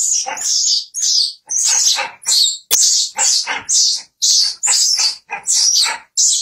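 Baby macaque screaming in a rapid series of short, high-pitched shrieks, about two to three a second, while an adult macaque holds and pulls at it.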